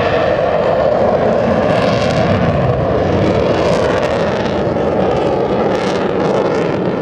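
Loud, steady jet roar from an F-22 Raptor's twin turbofan engines as it flies its air show demonstration.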